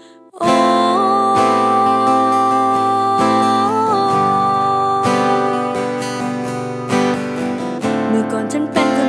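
Acoustic guitar music coming back in about half a second in after a short pause: strummed chords under a long held melody note that slides up twice.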